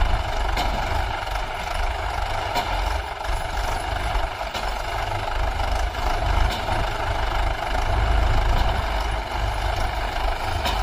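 Diesel tractor engines running steadily under load as a Swaraj 843 XM, a three-cylinder diesel, pulls a second tractor and its sand-laden trolley through deep sand.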